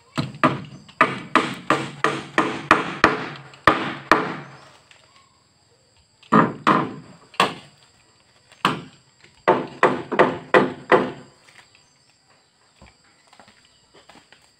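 A hammer striking the meranti wood bottom plank of a canoe hull in quick runs of blows, about three a second, each with a short wooden ring. One run fills the first four seconds, a second follows from about six to eleven seconds in, then the blows stop.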